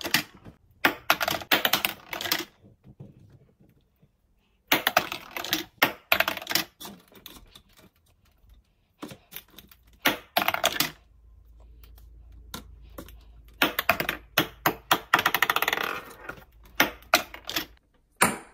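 Small plastic balls of a Connect 4 Shots game bouncing on a wooden tabletop and clattering into the plastic grid: several bursts of rapid clicks and rattles with short pauses between throws.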